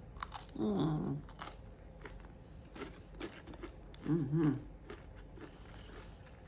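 Tortilla chips being eaten close to the microphone: scattered crunching and chewing clicks, with two short hummed murmurs, about half a second in and again about four seconds in.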